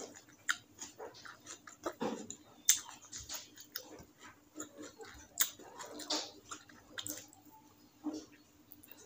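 Close-up wet chewing and lip-smacking of rice and curry eaten by hand: a string of irregular soft mouth clicks and smacks.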